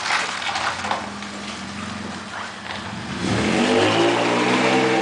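A vehicle engine running steadily, then accelerating about three seconds in, its pitch rising and then holding.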